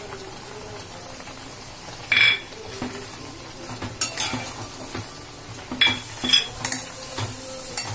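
Spatula stirring prawn curry in a metal kadhai: scattered clinks and scrapes against the pan, the loudest about two seconds in, over a faint steady simmering sizzle.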